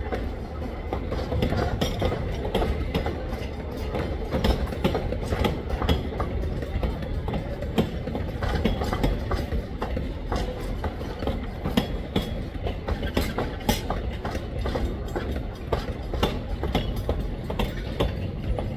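Narrow-gauge passenger coaches and a caboose rolling past, wheels clicking irregularly over the rail joints over a steady low rumble.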